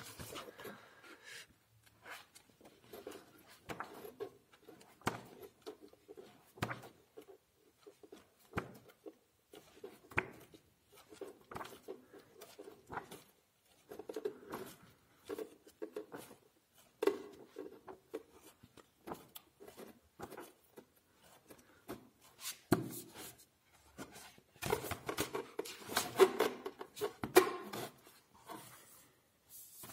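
Pages of a thick softcover book being leafed through: soft paper rustles and flicks scattered throughout. Near the end, a louder run of handling as the book is closed and moved over its cardboard shipping box.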